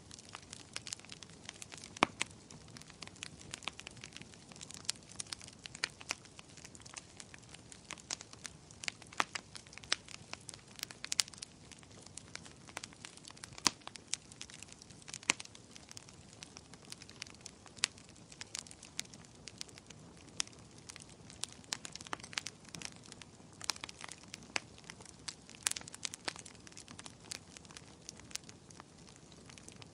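Wood fire burning, with a soft steady hiss and frequent irregular crackles and pops, a few of them sharper and louder.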